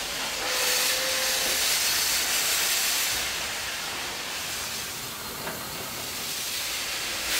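Steady hiss of steam escaping from a South African Railways Class 15F steam locomotive that is in steam at full working pressure.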